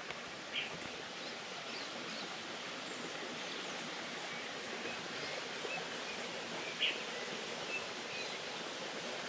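Steady rush of a small waterfall, with birds chirping now and then; two chirps stand out louder, about half a second in and near seven seconds.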